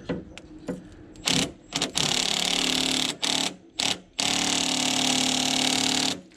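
Power wrench on the nut of a new sway bar link, running in repeated trigger bursts: a few short blips, a run of about a second, two more blips, then a steady run of about two seconds.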